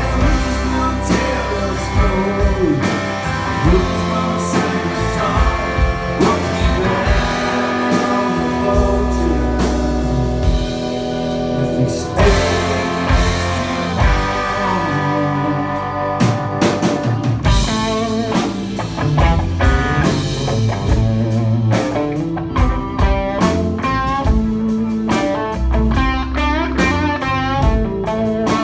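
Live blues-rock band playing, with electric guitar over bass and drums. A sung vocal line comes through in the first part, and an electric guitar lead with bent, wavering notes comes to the front in the second half.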